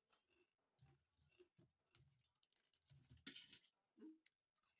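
Faint close-up eating sounds: soft chewing with small clicks and smacks, and a brief louder, crisp mouth noise about three seconds in.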